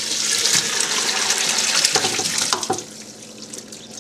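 Vegetable stock poured from a stainless steel stockpot into a plastic colander in a sink, a steady splashing pour that tapers off to dribbles about three seconds in.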